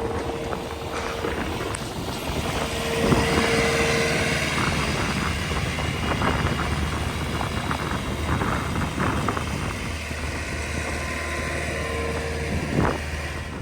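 Farm vehicle engine running steadily, with a higher tone that comes and goes.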